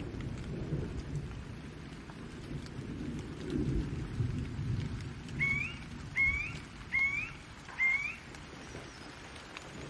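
Steady rain with low, rolling thunder rumbling underneath. A bird gives four short, rising chirps about halfway through.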